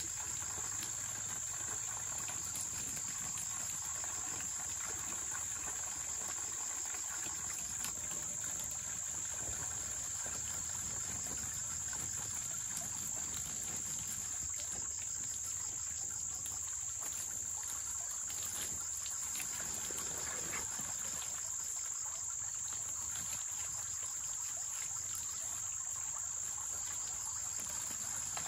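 Insects, such as crickets or cicadas, chirring in a steady, unbroken high-pitched drone.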